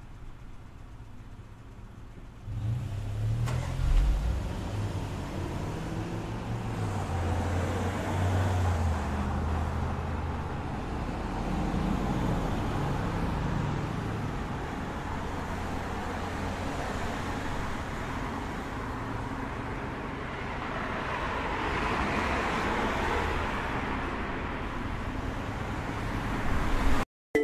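Road traffic ambience: cars running by in a steady rumble with slow swells, starting about two and a half seconds in and cutting off abruptly just before the end.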